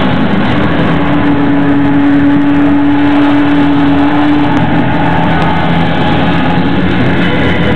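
Loud, heavily distorted electric guitar played live with a rock band, holding one steady note for about four seconds before a higher note takes over, over a dense wash of noise.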